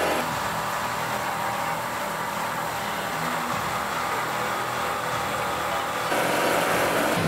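Motorized treadmill belt running under a LEGO Technic Avtoros Shaman 8x8 model truck, with the model's electric motors and plastic gearing whirring steadily; it gets a little louder about six seconds in.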